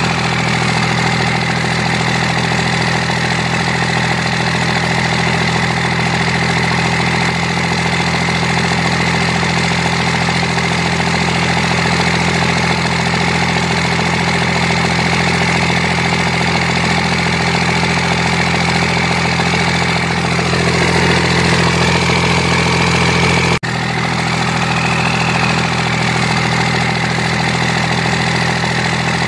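Drone X Pro quadcopter's motors and propellers whining steadily, picked up by its own onboard camera. The pitch wavers up and down a few times late on, with a sudden short break in the sound.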